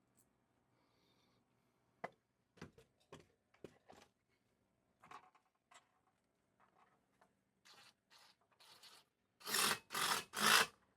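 Scattered light clicks and knocks, then three short, loud rasping rubs near the end: handling noise.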